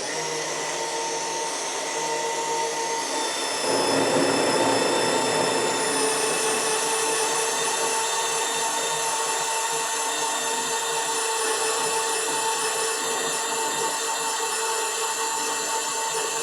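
Magnetic core drilling machine running a standard HSS core drill, with coolant, cutting into a 10 mm S235JR steel plate: a steady motor whine with cutting noise that gets louder about four seconds in. The operator found this cut unsteady, slow and needing a lot of feed force.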